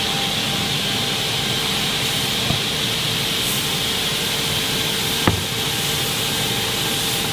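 Advantage 320 edgebanding machine running steadily, a constant hissing machine noise with a faint steady hum, and one sharp knock about five seconds in.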